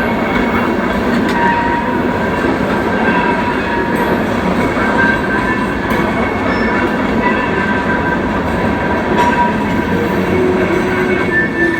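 Freight train rolling past: a loud, steady rumble of wheels on the rails, with a thin steady whine held throughout.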